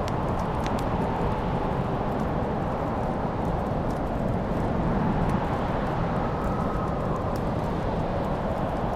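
Wood fire burning: a steady low rumbling rush with a few small sharp crackles and pops scattered through it.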